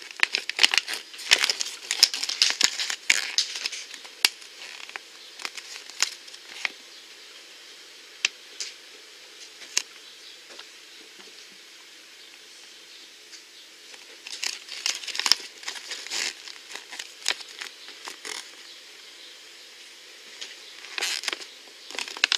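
Folded paper checklist leaflet being unfolded and handled: crinkling and rustling in bursts with scattered clicks, busiest in the first few seconds and again about 14 and 21 seconds in.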